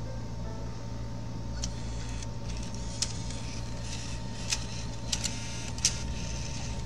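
Bose Wave radio's three-CD changer mechanism at work changing discs: a small motor whirring, with a series of sharp clicks starting about a second and a half in.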